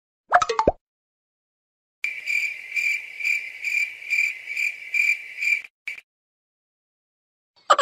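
Cricket-chirping sound effect: a steady high trill pulsing about twice a second for nearly four seconds. It comes after a brief cartoon-style sound effect near the start.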